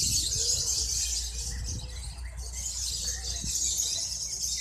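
Lovebirds singing a long, high, rapid chattering trill (the "ngekek" song judged at contests), breaking off briefly about halfway and then carrying on.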